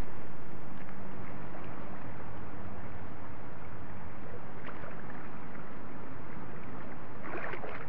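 Steady rushing of flowing river water, with a brief louder burst near the end.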